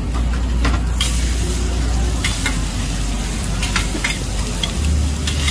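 Hoi tod batter of egg and fresh green mussels sizzling in oil on a large flat griddle. Metal spatulas scrape and clink against the pan several times, over a low steady hum.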